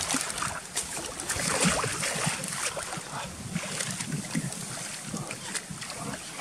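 A hooked salmon thrashing in shallow river water at the bank, a run of irregular splashes as it is reached for by hand, with some wind on the microphone.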